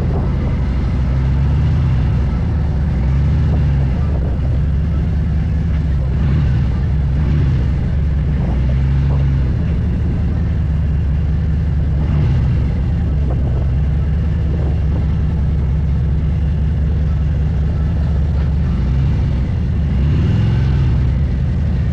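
Harley-Davidson motorcycle engine running steadily under way, its low note rising and falling slightly with the throttle.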